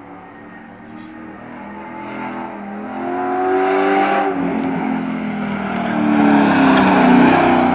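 Race car engine approaching on the track and growing steadily louder. Its pitch falls about four seconds in, then climbs again as it comes closer.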